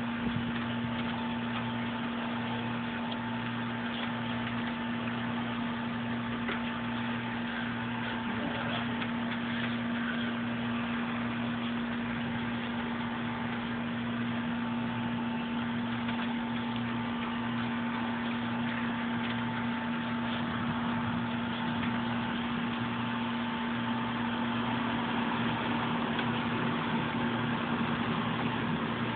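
A steady machine hum with a low tone and a fainter higher tone over a constant hiss, unchanging throughout.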